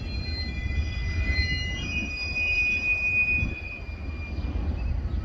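Freight car wheels squealing on rail yard tracks: several thin, high tones held for a second or two each, one taking over from another, over a steady low rumble.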